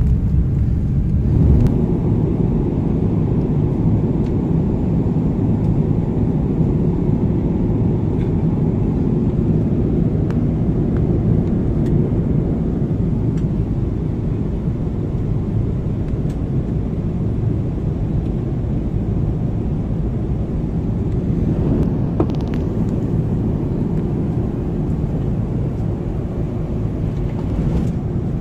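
Steady low roar of a jet airliner's engines and airflow, heard from inside the passenger cabin, with a few light clicks.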